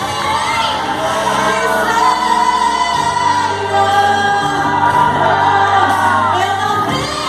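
Gospel worship music: voices singing a melody over held bass chords that shift about three seconds in and again near the end.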